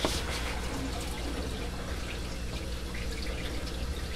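Water trickling and dripping in a darkroom sink with small scattered splashes, over a steady low hum.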